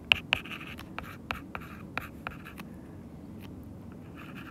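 Stylus tapping and scratching on a tablet's glass screen as words are handwritten: a quick run of light taps with soft scratching between them, thinning out to a few faint ticks a little past halfway.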